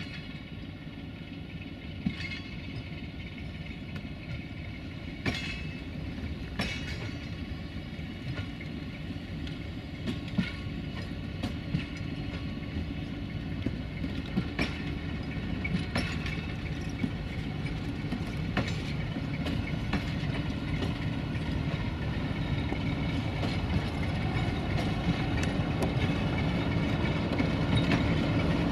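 A Romanian 060-DA (LDE2100) Sulzer diesel-electric locomotive running during shunting, its engine rumble growing steadily louder as it comes closer. Sharp clicks and knocks sound now and then.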